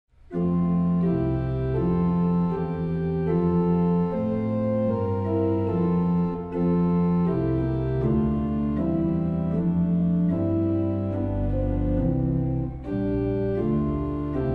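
Organ playing slow, sustained chords that change every second or so, with no singing or speech.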